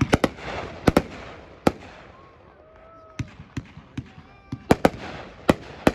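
A Winda "Rainbow" 500 gram consumer firework cake firing: a run of sharp bangs from shells bursting overhead, irregularly spaced, bunched near the start and again near the end, with fewer in the middle.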